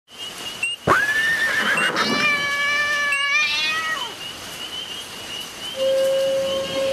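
Podcast intro sound effect: a fast rising sweep that levels off into a held tone, then a held tone with overtones that wavers near its end, then a lower held tone.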